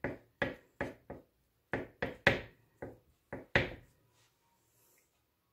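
Kitchen knife chopping boiled eggs on a bamboo cutting board: about ten sharp knocks of the blade on the wood at an uneven pace, stopping about four seconds in.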